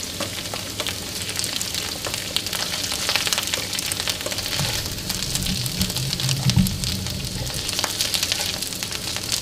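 Garlic and sliced dried shiitake mushrooms sizzling and crackling in hot lard in a wok as they are stir-fried with a spatula. A low hum rises for a few seconds about halfway through.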